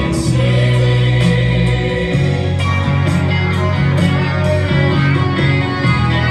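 Music: a song with a singing voice over instruments.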